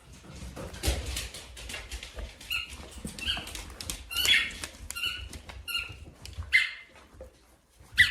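Dog chewing a squeaky toy: a string of short, high squeaks, about eight of them from a couple of seconds in, among rustling and small knocks.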